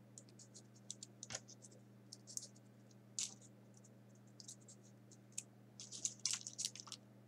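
Small folded paper origami pieces being pushed into place on a paper model, making soft, irregular paper clicks and scratches, busiest near the end as pieces are picked from a pile on a cutting mat. A low steady hum runs underneath.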